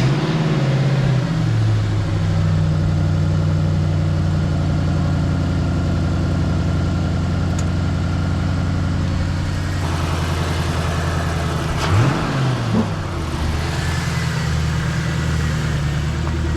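Ford Mustang engine just caught after a no-start, its battery having been trickle-charged: it revs briefly, then settles to a steady idle. It is blipped once, a quick rise and fall in pitch, about 12 seconds in.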